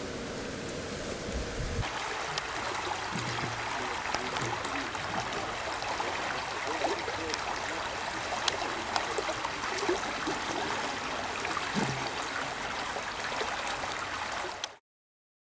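Steady rushing of running water, with scattered small clicks. The sound grows fuller a couple of seconds in and cuts off abruptly near the end.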